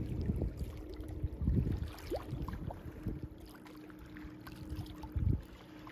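Wind buffeting the microphone in irregular low rumbles, the strongest about a second and a half in and again near the end, over a faint steady hum.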